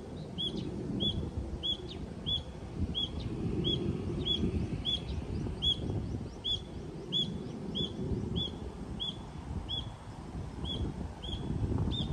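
A bird repeating one short chirp over and over, about two a second at an even pace, over a low, uneven rumble.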